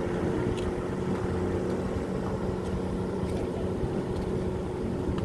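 Several jet skis running at speed on the water, a steady engine drone.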